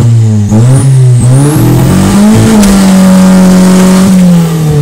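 Carburettor-turbocharged Ford Fiesta engine pulling hard from a launch, its pitch climbing with a couple of brief dips before holding high and easing off near the end. A thin high turbo whistle rises as the boost builds.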